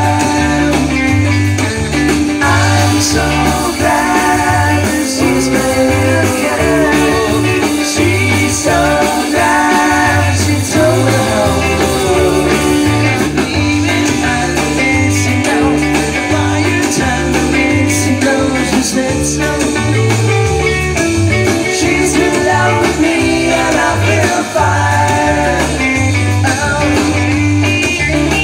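Live rock band playing, with drums, bass guitar, electric and acoustic guitars and a lead vocal, in a steady beat.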